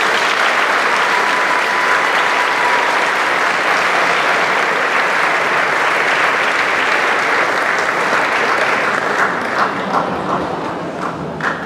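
Audience applauding for a prize-winner, steady at first, then thinning out over the last few seconds into scattered separate claps.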